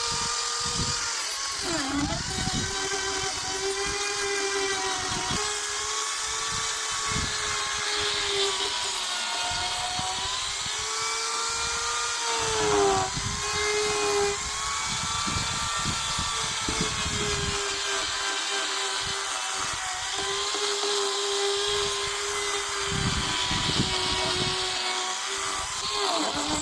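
Small two-stroke carving chainsaw running at high revs and cutting into wood. Its steady whine sags under load about two seconds in, again near the middle and near the end, then picks back up.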